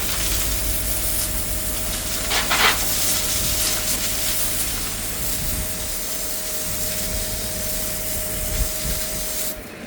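High-pressure drain jetter spraying water: a steady hiss with a faint steady whine running under it and a brief louder gush about two and a half seconds in. The hiss cuts off suddenly near the end.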